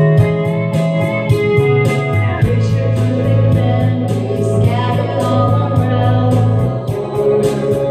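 Karaoke backing track of a country-pop ballad playing loudly, with guitars and a steady beat, and a woman singing along into a handheld microphone.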